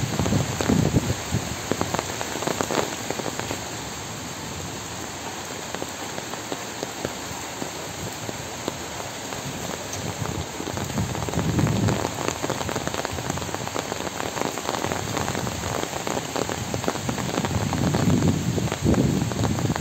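Steady rain falling on wet paved ground, with a few brief low rumbles near the start, around the middle and near the end.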